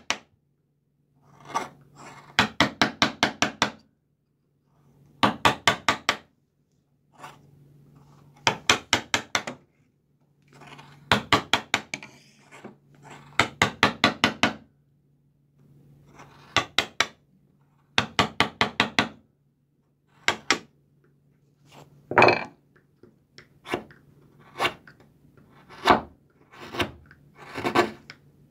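Wooden mallet tapping a carving chisel into a wooden block, in quick runs of about five to eight light blows with short pauses between; near the end the blows come one at a time.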